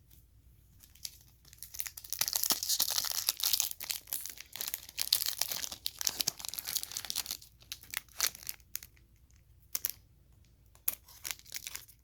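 A Panini WWE NXT 2.0 trading-card pack wrapper being torn open and crinkled by hand: a dense crackling stretch from about two seconds in to about seven seconds, then scattered crinkles and clicks.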